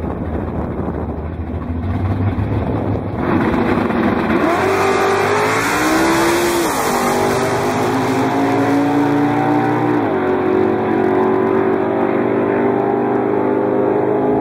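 Drag-racing engines, a V8 Chevelle drag car and a 2.0 TDI Seat Arosa, launching off the line. A low rumble gets louder about three seconds in, then the engine note climbs in pitch, dropping back at gear changes near seven and ten seconds and climbing again.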